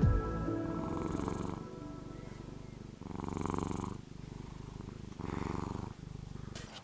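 Domestic cat purring steadily up close, the purr swelling louder about every two seconds.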